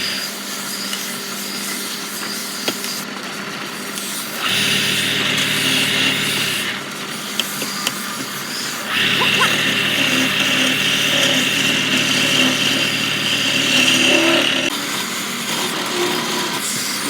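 Wood lathe running, with two longer stretches of a turning tool cutting the spinning wood, about four seconds in and again from about nine seconds in, each louder with a hum and a hiss.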